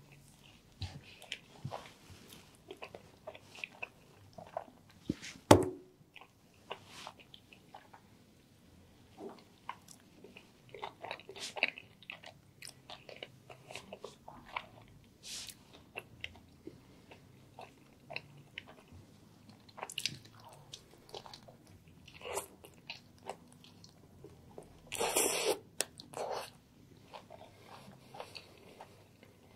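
Close-up ASMR biting and chewing of a chicken and mushroom sandwich in a grilled sub roll: wet chewing with many small crunchy crackles. A sharp, loud crack about five seconds in, and a longer burst of dense crunching about 25 seconds in.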